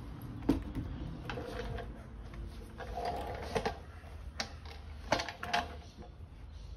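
A cloth wiping and rubbing a car's door shut, with a few sharp clicks and knocks of handling. The loudest knock comes about half a second in, and two more come around five seconds in.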